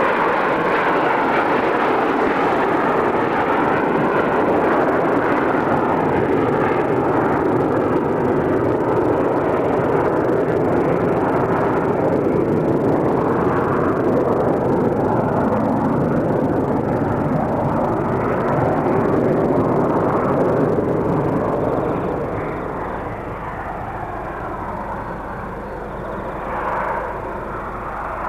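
Boeing 727 jet engines (three Pratt & Whitney JT8D turbofans) at takeoff thrust as the airliner climbs away, a loud steady jet noise that fades noticeably about three-quarters of the way through.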